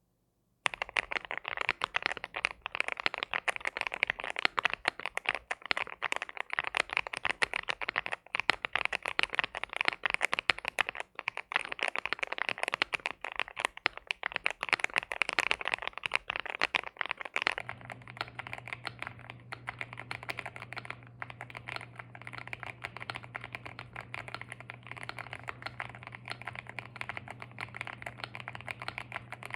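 Continuous fast typing on a Cidoo V75 mechanical keyboard with CIDOO Matte linear switches: a dense stream of keystroke clacks. About 17 seconds in the sound changes abruptly to quieter, softer-toned typing with a low steady hum underneath.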